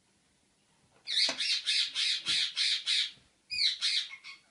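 A bird squawking in a quick run of high calls, about three or four a second for two seconds, then a shorter run of a few more calls near the end.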